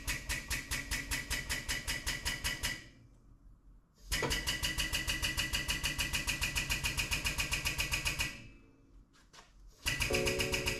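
Air-over-hydraulic pump of a 40-ton pneumatic shop press running in rapid strokes, about nine a second, as it pumps the ram down. It stops about three seconds in, runs again from about four to eight seconds in, and starts once more near the end.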